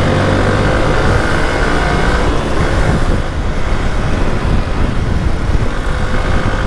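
Hero XPulse motorcycle engine pulling as the bike accelerates, its note rising a little over the first couple of seconds. Heavy wind rumble on the bike-mounted microphone, from riding at speed in a strong storm wind, takes over from about halfway.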